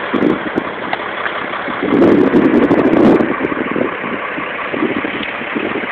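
Fire truck engine idling steadily, swelling louder for about a second a couple of seconds in.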